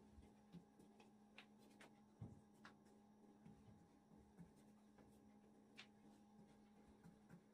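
Very faint rubbing and scattered soft taps of hands pressing and rolling thin yufka dough around a long, thin wooden rolling pin on a wooden board, over a low steady hum.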